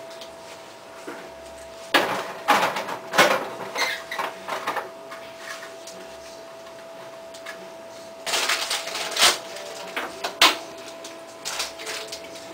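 Two bursts of rustling and crinkling, about two seconds in and about eight seconds in, each with a few sharp clicks, over a faint steady high-pitched hum.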